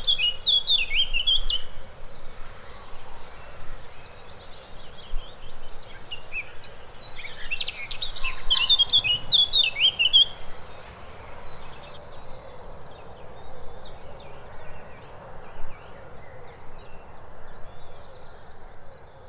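Blackcap singing: two rich, warbling phrases of quick jumbled notes, the second about eight seconds after the first, with fainter high bird notes between them.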